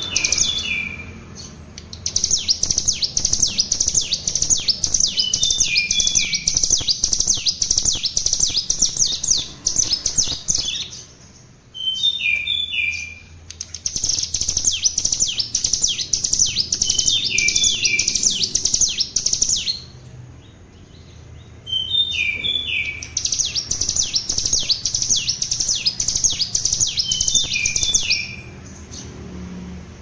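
Ciblek gunung, a small prinia songbird, singing its rapid machine-gun trill (the 'ngebren' song it is still learning). The trill comes in loud bursts of several seconds with short breaks between them, and each burst opens with a few quick falling chirps.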